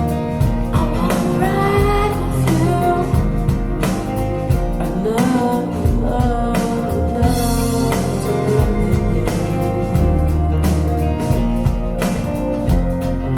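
Song with a singer's voice over acoustic guitar and bass, played back through a pair of Focal Aria 906 bookshelf speakers. The voice comes in about a second in and again around five seconds, over a steady accompaniment.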